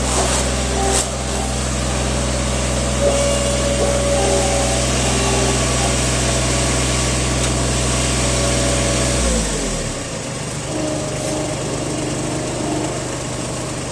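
Skid-steer loader engine running steadily at high revs. About nine seconds in its pitch falls as it is throttled back, and it settles into a lower, quieter idle.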